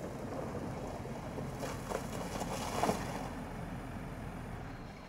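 Land Rover Defender 110 P400 driving slowly over wet, muddy grass: a low, steady engine and tyre rumble that grows louder for a moment between about one and a half and three seconds in, then fades.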